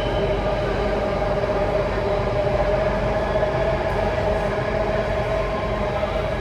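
Alstom Metropolis C830C metro train running at steady speed, heard from inside the carriage: a constant rumble with a steady whine of several held tones.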